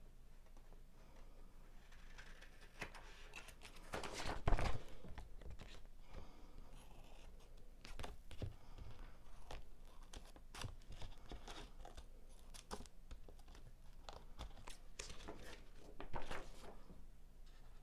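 Scissors snipping through a paper planner page, a series of short crisp cuts with paper rustling as the page is turned and handled; the loudest cuts come about four seconds in and again near the end.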